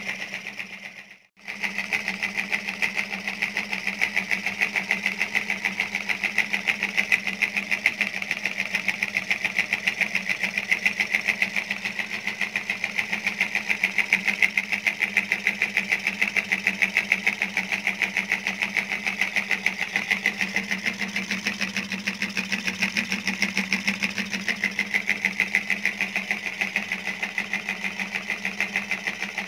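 Homemade toy steam engine running: its CD flywheel spins and the wire crank drives the syringe piston with a fast, steady mechanical rattle. There is a short break about a second in.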